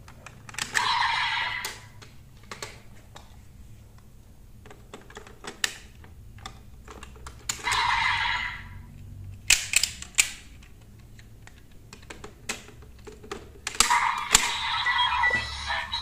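Plastic clicks and clacks of a DX Desire Driver toy belt being handled as a hammer Raise Buckle is slotted in and worked. Short electronic sound bursts come from the toy's small speaker about a second in, around eight seconds in, and again near the end as the belt lights up.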